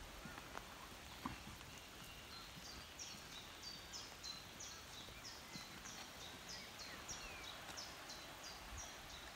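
A small songbird singing a long run of short, high notes, about three a second, that starts a couple of seconds in, over a faint steady outdoor hiss.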